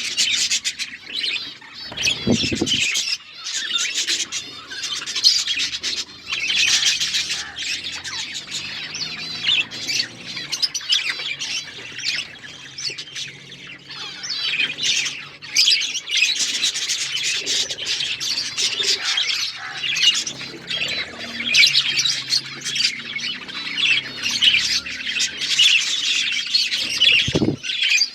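A flock of budgerigars chirping and chattering without a break, many short, quick warbling calls overlapping. A couple of brief low thumps occur, about two seconds in and near the end.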